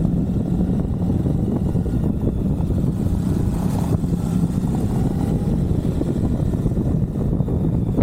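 Suzuki V-Strom 1050XT's V-twin engine running at a steady pace on the move, a low, even drone.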